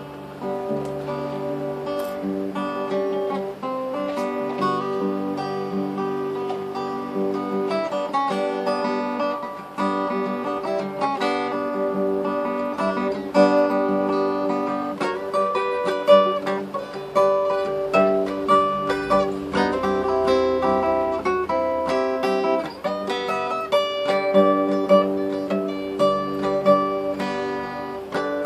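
Steel-string acoustic guitar played fingerstyle in Hawaiian slack key style: a picked melody over sustained low bass notes.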